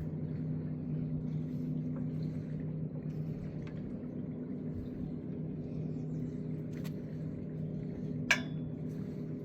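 Steady low hum of a running engine, with one sharp click that rings briefly about eight seconds in.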